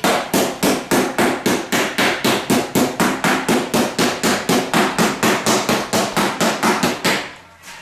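Body hammer striking the flange of a new steel door skin for a 1998 Dodge Dakota against a dolly, folding over the hem seam. The blows are quick and even, about four a second, and stop about seven seconds in.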